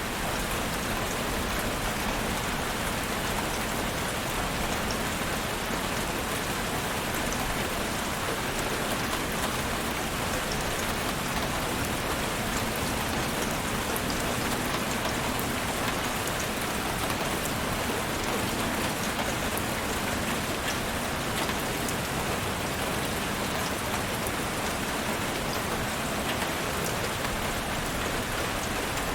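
Steady rainfall, dense drops pattering on a surface, with scattered individual drop ticks over an even hiss.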